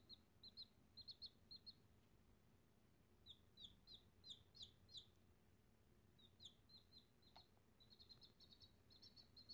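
Baby chick peeping: faint runs of short, high chirps, some dropping slightly in pitch, with a single faint click about seven seconds in.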